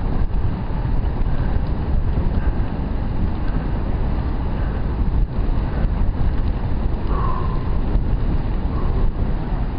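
Wind rushing over a helmet-mounted camera's microphone on a road bike moving at speed, a steady deep rush.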